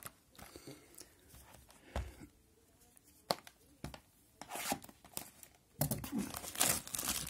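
Clear cellophane shrink wrap on a sealed trading-card hobby box being cut with scissors and torn open. Scattered sharp clicks and short rustles come first, then denser crinkling and tearing from about six seconds in.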